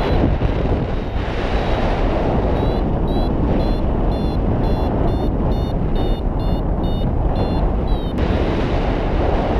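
Wind rushing over the microphone in flight, with a paraglider's variometer beeping in short pulses, about three a second, which signal that the glider is climbing. The beeping drops out from about half a second in until about two and a half seconds in, and stops about a second before the end.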